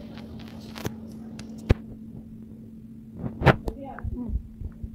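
A steady low electrical hum with a few sharp clicks or taps, the loudest a little past halfway, and faint voices in the background near the end.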